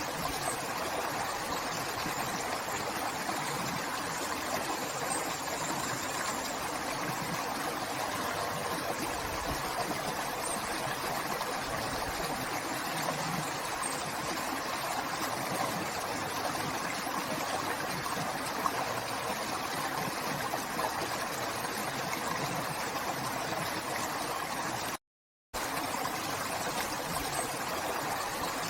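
River water flowing steadily in a continuous rushing noise. It cuts out completely for about half a second near the end.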